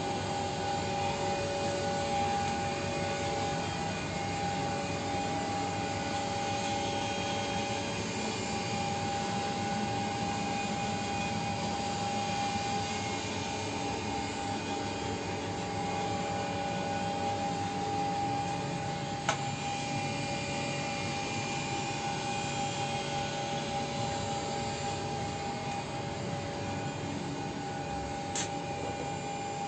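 Steady whirring of cooling blowers and auxiliary electric machinery in an electric locomotive's machine room, with a steady whine over the noise. A sharp click cuts in about two-thirds of the way through, and another comes near the end.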